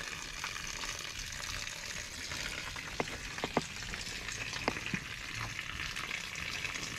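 Steady hiss of garden-hose water running into a barrel around an outboard's lower leg, with a few light clicks around the middle.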